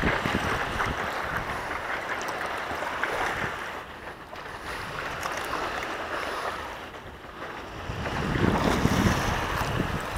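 Water sloshing and splashing around a stand-up paddleboard as it is paddled, with wind on the microphone. The water noise dips twice and grows louder near the end.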